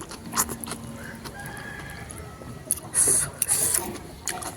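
A rooster crowing faintly in the background. About three seconds in comes a loud, short burst of eating noise, a slurp of noodles, with chewing around it.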